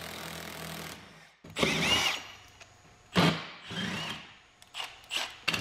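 Cordless power tool run in several short trigger bursts, its motor whirring up and down, driving the centre bolt of a small puller on a water pump's pulley hub.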